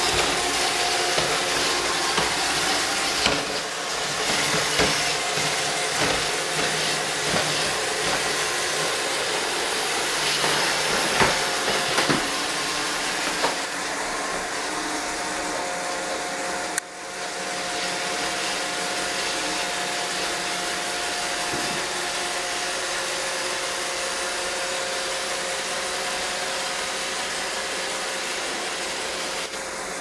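iRobot Roomba robot vacuum running: the steady whir of its vacuum motor and brushes, carrying a few faint steady tones. There are a few light knocks in the first half and a brief drop in level about 17 seconds in.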